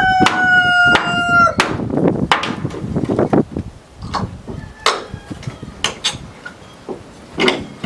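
A rooster crows once, a held call about a second and a half long, followed by a run of irregular hammer blows knocking a nailed board loose.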